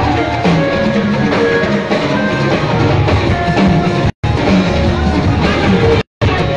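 Loud church band music with drums and guitar. The sound cuts out completely for a moment twice, about four and six seconds in.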